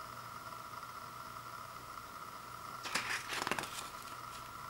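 Paper pages of a CD booklet being flipped, a short rustle and flutter about three seconds in, over steady background hiss.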